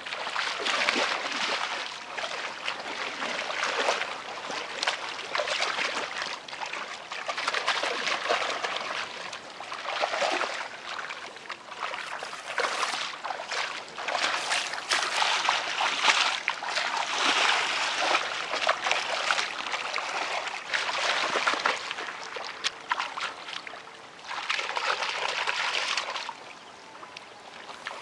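Hands digging into wet mud and shallow water, squelching and splashing in uneven spells with small wet clicks.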